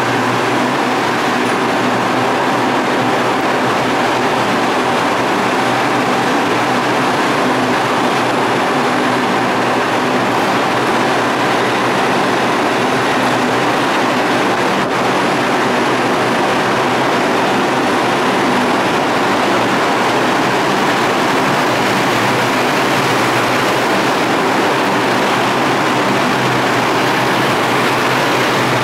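A Bombardier R142 New York City subway train pulling into the station and moving slowly along the platform: a steady, loud rumble of wheels on rail with a hum running through it.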